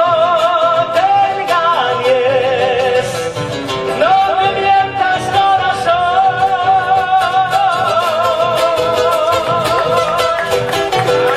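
Argentine folk song playing in a passage between sung lines: a wavering melody line with vibrato over plucked guitar accompaniment.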